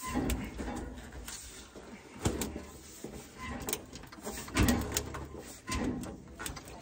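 A handful of irregular knocks and thumps from things being handled and set down, the loudest a little past halfway.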